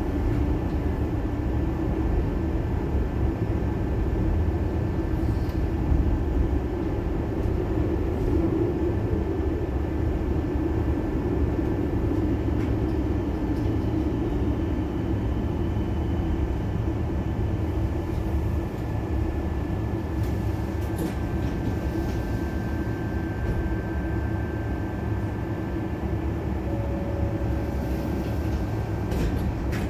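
Tram running along its rails, heard from inside the car: a steady low rumble of wheels on track, with a faint high tone held above it.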